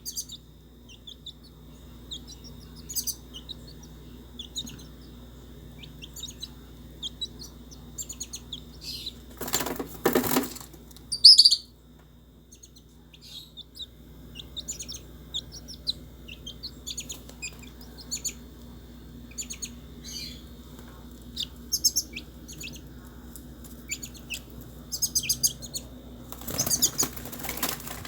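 Gray kingbird (pitirri) calling in short, high chirps scattered throughout, with one louder sweeping call about eleven seconds in. Two rustling noises of about a second each, about ten seconds in and near the end, over a steady low hum.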